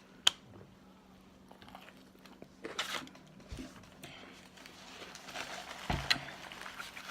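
Eating sounds close to the microphone: chewing and the crinkle of takeout wrappers. A sharp click comes just after the start, and short rustles come about three and six seconds in.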